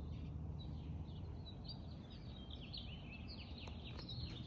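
Songbirds chirping and twittering in quick short notes, busier from about two seconds in, over a low steady outdoor rumble.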